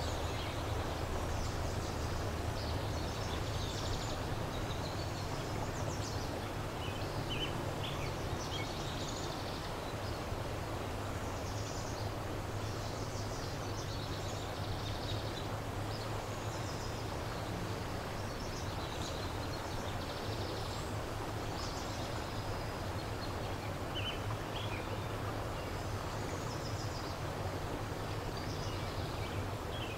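Steady low rush of a fast, high river flowing, with small birds giving short high chirps every few seconds.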